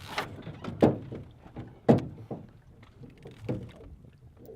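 A run of irregular knocks and thumps on a boat, two of them loud, about a second and two seconds in, with fainter ones between.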